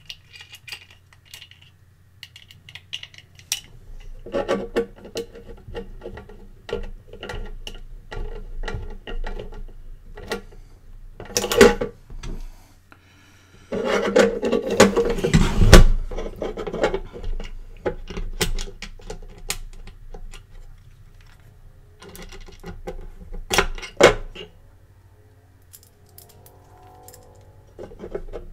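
Small screws being driven by hand with a screwdriver to fix a metal cradle bracket to the side of a hot air station's metal case. Irregular metallic clicks, scrapes and clinks of the screwdriver, screws and bracket, with louder spells of handling knocks.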